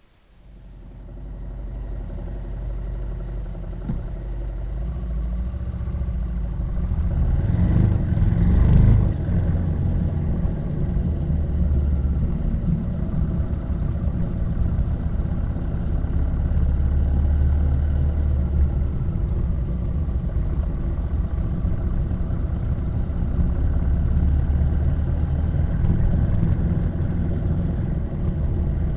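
Vehicle engine running on the move with a steady low road rumble, building over the first couple of seconds and rising briefly in pitch as it speeds up about eight seconds in.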